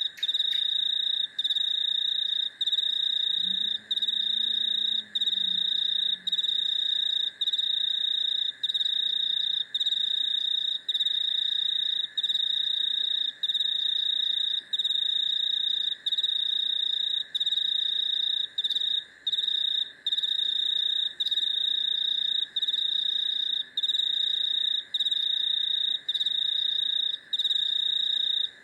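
Chorus of crickets and cicadas: a loud, high, continuous trill that breaks off briefly about every second and a half, over a lower steady hum. A faint low call sounds for a couple of seconds about four seconds in.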